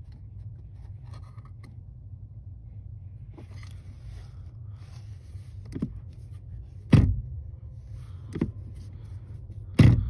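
Pliers scraping and knocking against the clutch pedal pushrod and pedal bracket under the dash as the rod is turned clockwise to take up clutch pedal free play. There are several sharp metallic knocks, the two loudest in the second half, over a steady low hum.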